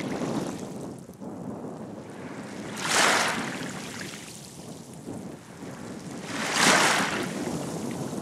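Small waves lapping at the shoreline of a calm bay over a steady low rush of water, with two louder washes, one about three seconds in and one near the end.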